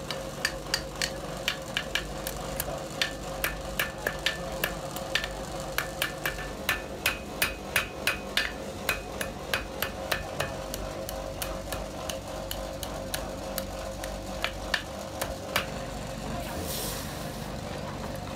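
Blacksmith's hand hammer striking red-hot iron on an anvil: a fast run of ringing blows, about two to three a second, for around ten seconds, then slower, scattered blows. Near the end a short hiss as the hot iron is quenched in a bucket of water.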